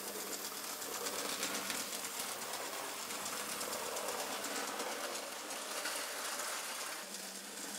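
Bachmann OO gauge SR Maunsell N class model locomotive running along the layout's track with a rake of coaches: a steady electric-motor whir and a fine, rapid clatter of wheels on rail, easing slightly near the end.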